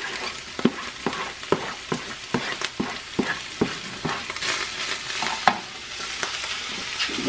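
Ground beef frying in a skillet as diced tomato is scraped into it, with a string of sharp taps and knocks from a spatula on a plastic cutting board and the pan over the first few seconds. The sizzle grows louder about four seconds in as the mixture is stirred.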